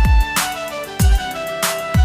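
Background music with a beat: deep electronic kick drums that drop in pitch and sharp snare hits over held melodic notes.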